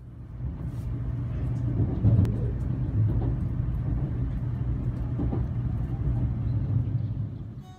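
Passenger train running, heard from inside the carriage: a steady low rumble of wheels and motion that fades in over the first second.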